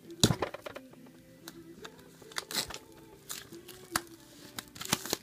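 Paper and plastic packaging rustling and crinkling as album inserts and photo cards are handled, in a string of short irregular scrapes and clicks, the loudest a little after the start. Faint music plays underneath.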